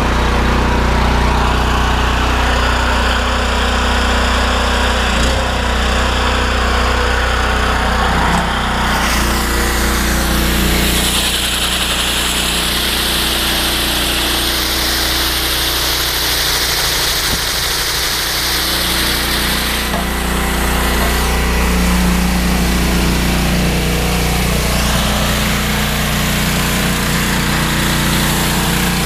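Engine-driven pressure washer running steadily, feeding a rotary flat surface cleaner. A louder spraying hiss sounds from about eleven seconds in to about twenty.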